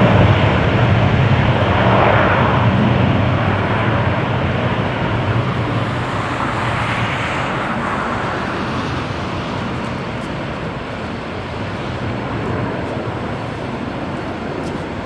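Airbus A330-300's twin General Electric CF6 turbofans at takeoff thrust on the takeoff roll: steady jet noise with a deep rumble that slowly fades as the airliner accelerates away down the runway.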